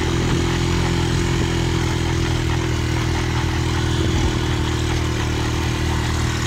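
ATV engine running at a steady speed, its pitch holding even throughout.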